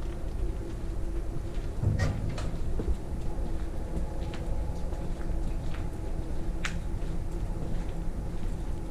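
Footsteps through a debris-strewn abandoned building: a few scattered crunches and clicks, the sharpest about two seconds in and again past six seconds, over a steady low rumble.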